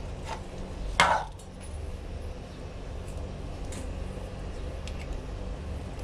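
Metal shower fittings being handled: a chrome shower handset unscrewed from its hose and a brass hose adapter fitted, with one sharp knock about a second in and a few faint clicks after it, over a steady low rumble.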